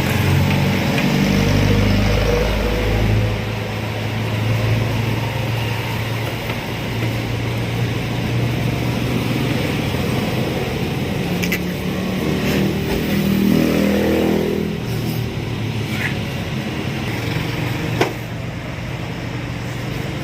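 Engine running at a steady idle with a low hum. About two-thirds of the way in it revs up briefly, then drops back. A few sharp clicks come near the end.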